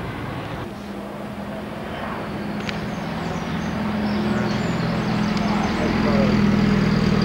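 Engines of vintage lorries and vans running as they drive past, a steady low engine note that grows louder as they approach.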